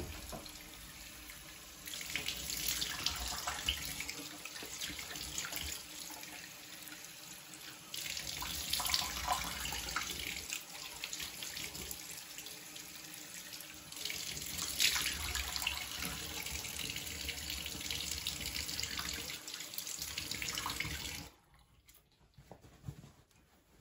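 Bathroom sink tap running while water is splashed onto the face in handfuls, rinsing off a clay mask. Near the end the water stops suddenly as the tap is shut off.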